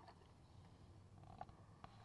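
Near silence: low steady room hum with two faint clicks in the second half.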